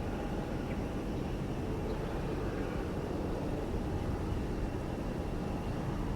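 Jet airliner engines heard from a distance: a steady low rumble with a faint, even high whine over it.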